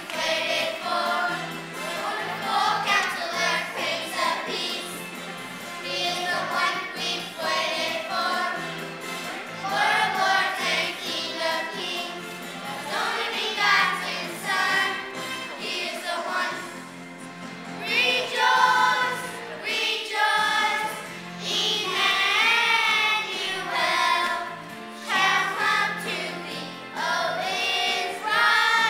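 A young girl singing a solo song with instrumental accompaniment, with other children's voices singing along in places.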